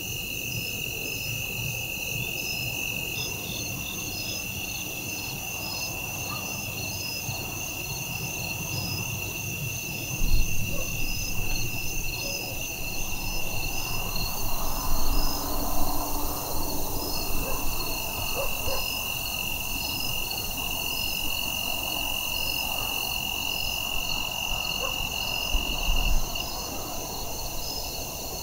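Evening chorus of crickets and other insects: one steady high-pitched trill under a faster, evenly pulsing chirp. A few low bumps break in about ten seconds in, around fifteen seconds, and once more near the end.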